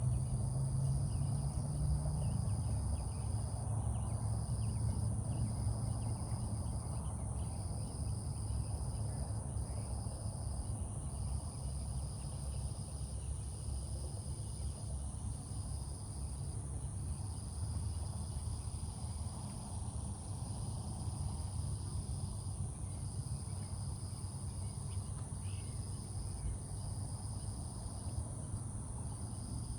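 Insects trilling in a high, steady buzz broken into stretches of one to two seconds with short gaps, over a low, steady rumble.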